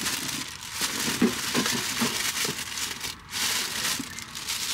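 Paper and plastic takeout bags rustling and crinkling as food is unpacked, with small irregular clicks and crackles.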